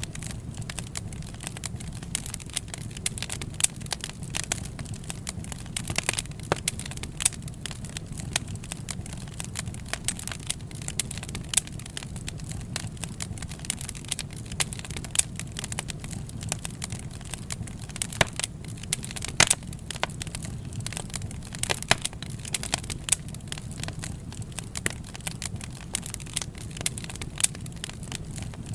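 Wood fire crackling: frequent irregular sharp pops and snaps over a steady low rumble.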